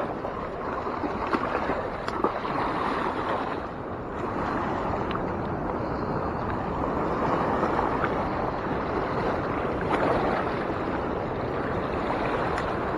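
Fast-flowing river water rushing steadily, a continuous even roar of current; the river is running high and fast.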